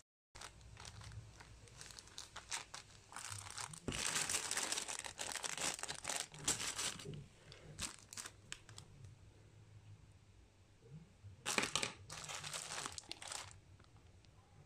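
Plastic packaging of braiding-hair packs crinkling as it is handled, in irregular bursts with quieter gaps, a longer stretch in the middle and a shorter one near the end.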